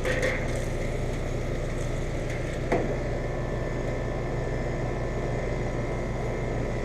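Outdoor central air conditioner condenser unit running: a steady mechanical hum from the compressor and fan with a few constant tones over it. A single short knock about three seconds in.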